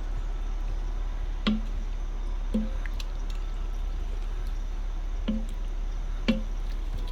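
A spoon stirring diced potatoes and broth in an Instant Pot's stainless steel inner pot, the liquid sloshing and squishing, with four short knocks of the spoon against the pot.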